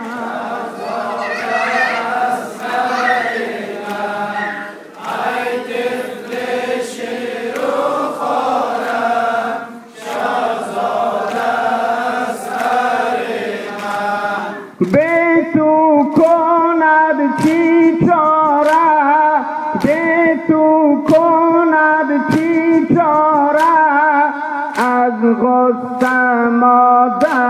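Men's voices chanting a Persian Muharram mourning lament (noha) together. About halfway through, a single lead male voice takes over the singing over rhythmic chest-beating (sineh-zani), about three strikes every two seconds.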